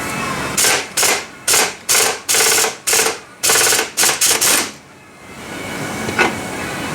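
Pneumatic impact wrench hammering in about ten short bursts, trigger pulled and released repeatedly over some four seconds, as it works a fastener loose on a Polaris General's clutch.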